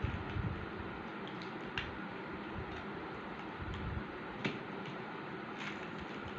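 A few scattered light ticks from a glue brush and coloured rice grains against a glass jar and glass bowl, over a steady background hiss.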